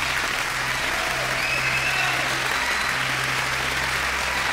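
Applause: a steady, even clatter of many hands clapping.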